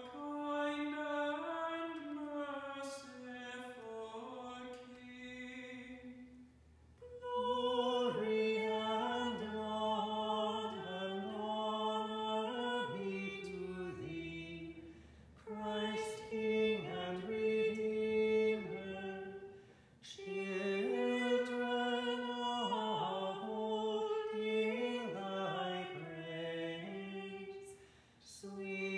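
A single male voice chanting unaccompanied in a church, moving between sustained notes in long phrases with short breaks between them.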